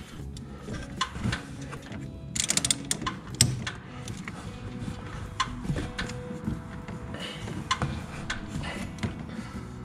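Background music over scattered, irregular metal clicks and clinks of hand tools tightening the pinch bolt on a steering shaft U-joint.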